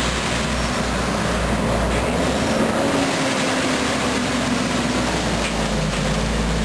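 Diesel semi truck pulling a tanker trailer drives past close by, its engine running steadily over a low rumble and tyre noise on the wet road.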